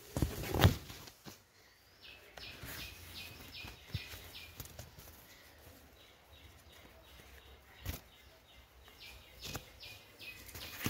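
A bird chirping in quick runs of short high notes, about five a second, one run about two seconds in and more after six seconds. Phone handling and leaves brushing the microphone make a loud rustle just after the start and a few knocks later.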